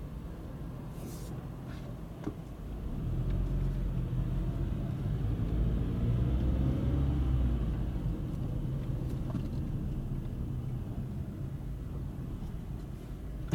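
A car's engine and tyres heard from inside the cabin as it drives slowly, with a low steady hum. The hum grows louder about three seconds in as the car pulls forward, then eases as it slows toward a stop. A few light clicks come about two seconds in.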